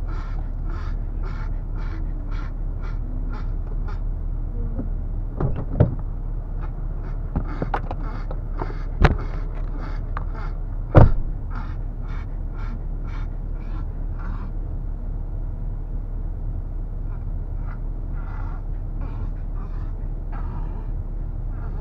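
Steady low rumble of a 4x4's engine, heard from inside the cabin, with a rhythmic clicking about twice a second that stops for a few seconds twice. Several sharp knocks come in the middle, the two loudest about two seconds apart.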